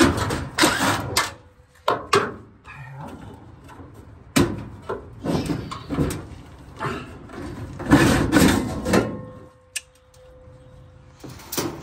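Sheet metal scraping and rattling in irregular bursts as a dryer's coiled heating element is slid out of its metal heater housing.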